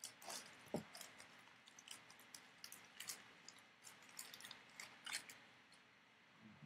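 Foil wrapper of a trading-card pack being torn open and crumpled by hand: faint, irregular crinkling and crackling that stops about a second before the end.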